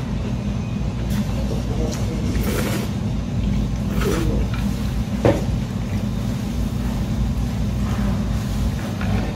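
Ramen broth sipped and slurped from a soup spoon, with a few short slurps and a sharp click about five seconds in. A steady low hum runs underneath.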